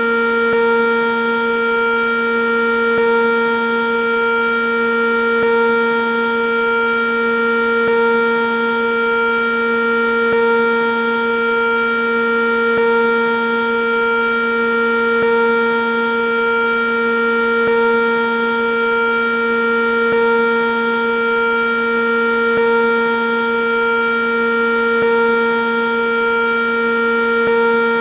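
Sentry 3V8 civil defense siren sounding at a steady pitch. Its loudness swells and fades about every two and a half seconds.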